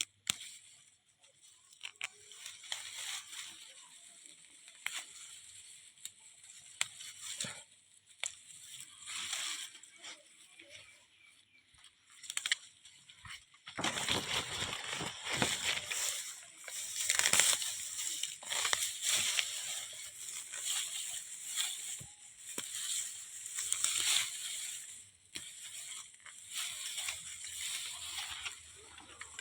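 Irregular rustling and crunching of wet grass and weeds being handled, louder and busier from about halfway through.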